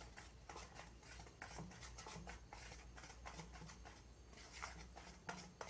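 Faint, quick scraping and light tapping of a utensil stirring thick semolina cake batter around a plastic mixing bowl.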